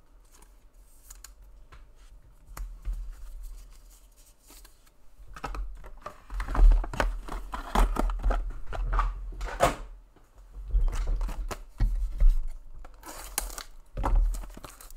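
Hands handling trading cards and packaging on a table: cards slid, stacked and set down with light taps and rustles. A short crinkle of plastic wrap comes near the end, as a shrink-wrapped card box is picked up.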